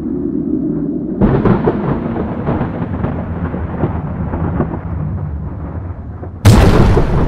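Thunderstorm sound effect: low rolling thunder that swells about a second in, then a sudden sharp thunderclap near the end.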